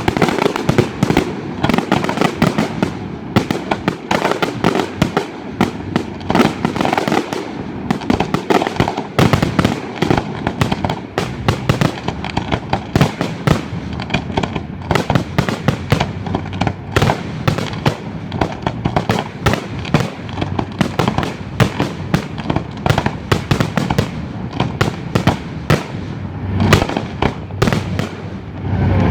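Fireworks finale of a sound-focused display: a continuous rapid barrage of sharp bangs, several a second, over a rumble of echoing reports.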